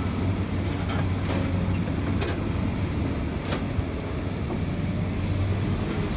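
Komatsu excavator's diesel engine running with a steady low drone as the machine swings its log grapple, with a few faint light knocks over the top.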